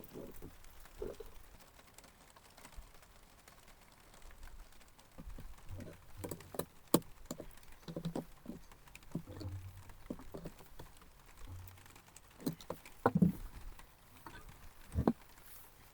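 Irregular light clicks, taps and knocks of objects being handled, with a few louder sharp knocks, the loudest about 7 and 13 seconds in.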